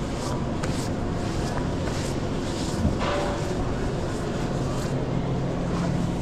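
Steady pizza-kitchen background drone with a low hum, broken by scattered clicks and clatter of work, with a thud about three seconds in.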